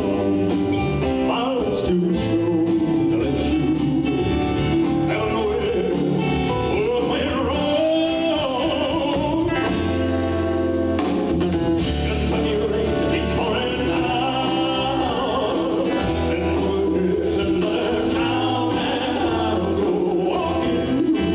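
Live band music: a male vocalist sings a slow ballad into a microphone, backed by acoustic guitar, electric bass and drums.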